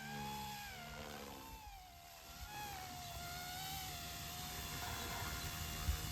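Small direct-drive electric RC helicopter in flight: a steady motor and rotor whine whose pitch wavers up and down as the throttle and load change, dipping and recovering in the first couple of seconds. A short knock is heard near the end.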